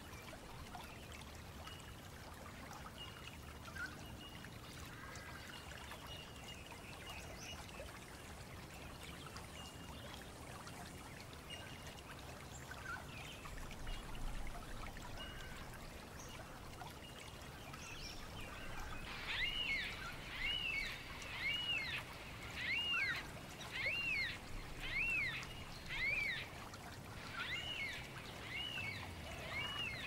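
Wild birds calling in Australian bushland over a steady rushing background hiss, with faint high thin notes at first. From a little past halfway, one bird repeats a short rising-then-falling chirp about every two-thirds of a second, much louder than the background.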